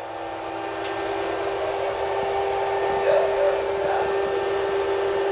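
Steady machinery hum with one droning tone, swelling a little over the first couple of seconds, from equipment running in a boat's bilge.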